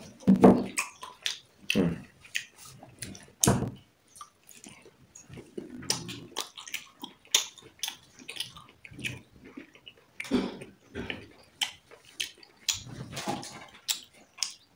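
A person eating close to the microphone: chewing, with many irregular sharp smacks and clicks and a few louder thumps.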